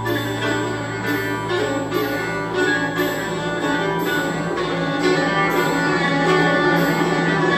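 Amplified violin playing with live electronics over a steady low drone, the drone moving up in pitch about a second and a half in.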